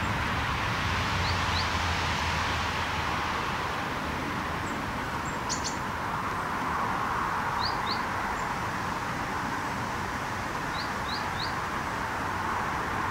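Small bird chirping high and briefly, in pairs and a triplet, over a steady outdoor background noise with a faint low hum.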